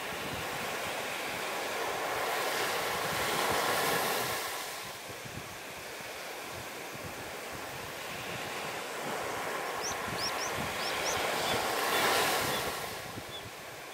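Sea waves washing in on the shore. The surf swells twice, about two seconds in and again around ten seconds, over a steady wash with wind on the microphone.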